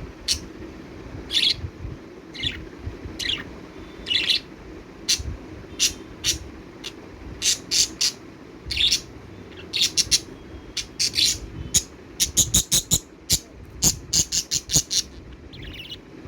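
Pet budgerigars chirping in short, sharp calls, scattered at first and then in quick runs of rapid chirps near the end.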